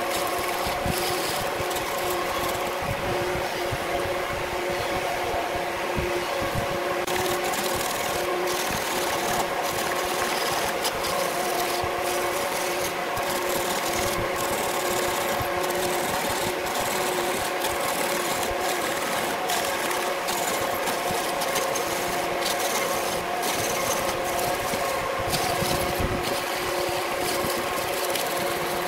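Wood lathe running steadily while a turning tool cuts the spinning wood blank: a continuous scraping of steel on wood over the steady hum of the lathe motor, with scattered sharp ticks.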